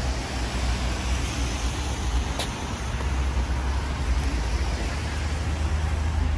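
Steady traffic noise from cars on a wet road, with a low rumble underneath. There is one short tick a little over two seconds in.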